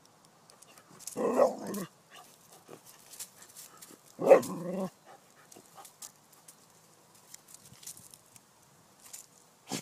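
A dog barking twice, about three seconds apart, at a snake it is confronting, with faint scuffs and rustles between the barks.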